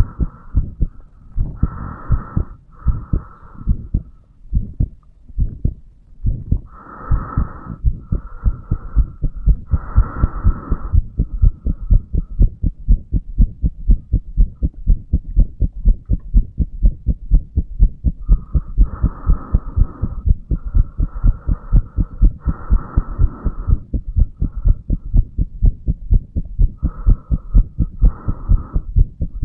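Human heartbeat heard through the chest at the mitral valve area, beating in a steady, regular rhythm of low thuds. A fainter, higher rushing sound comes and goes over the beats.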